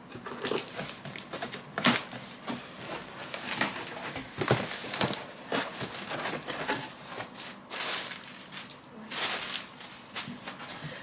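A large cardboard delivery box being opened and unpacked, with irregular rustling, scraping and sharp knocks as packaging and metal non-stick oven trays are handled.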